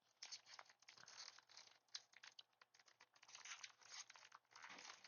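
Faint crinkling and scratching of a foil Pokémon Scarlet & Violet booster pack wrapper as it is handled and picked at, trying to tear it open, with scattered small crackles throughout.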